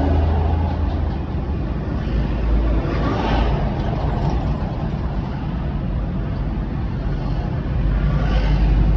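Car driving on city streets: steady low engine and road rumble with tyre hiss, swelling briefly about three seconds in and again near the end.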